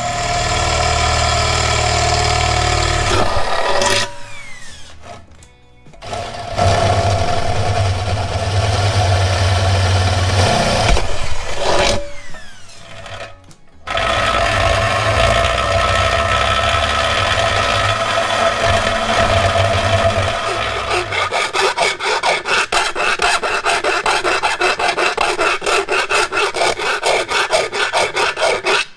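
Power tool cutting into the sheet steel of a replacement quarter panel, run in three long stretches with the motor winding down in the gaps. In the last stretch the cut turns into a fast, even pulsing.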